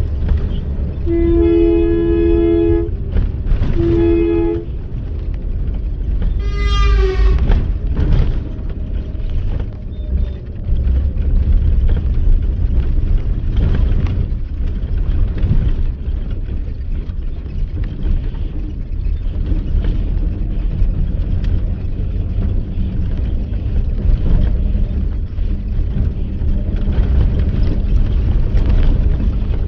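Steady low rumble of a bus travelling on the road. A vehicle horn sounds two blasts, a longer one about a second in and a shorter one near four seconds. A short rising pitched sound follows about seven seconds in.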